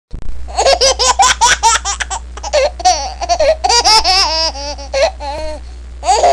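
A young child laughing: quick runs of high giggles, then longer sliding laughs, over a steady low hum.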